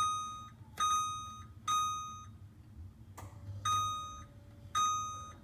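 LG microwave control panel beeping as its buttons are pressed to select a program: five short, single-pitched beeps, each with a light click of the key.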